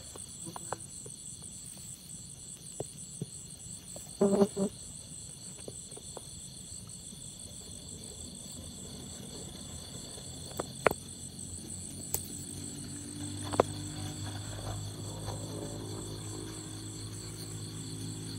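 Crickets and other night insects trilling steadily in several high pitches, with scattered faint clicks and a brief louder rustle about four seconds in. A low hum comes in a little past the middle.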